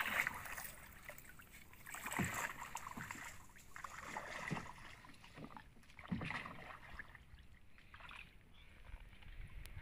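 Water swishing and splashing in separate strokes, about every one to two seconds.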